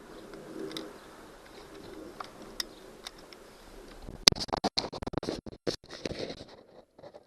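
A zip tie gun being worked on a cable tie: faint scattered ticks, then a sharp click about four seconds in and a quick run of clicks and rattles lasting about two seconds.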